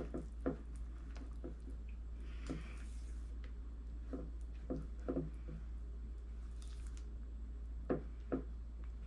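Spoon stirring melting chocolate chips into a thick, hot fudge mixture in a bowl: soft squishing with irregular light knocks against the bowl.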